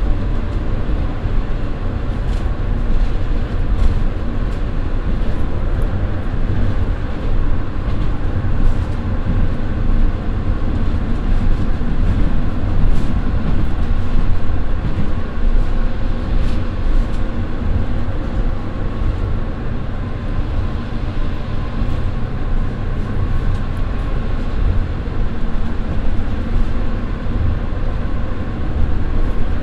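Cabin running noise of a JR Shikoku KiHa 54 diesel railcar at about 65 km/h: a steady low rumble from its twin Niigata DMF13HS diesel engines, wheels and rails, with occasional faint clicks.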